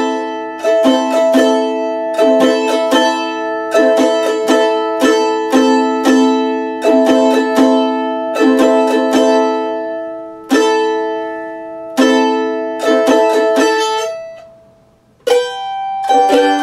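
Mandolin strummed in chords: a steady run of strums, each chord ringing on between them. The strumming stops briefly about fourteen seconds in, then starts again.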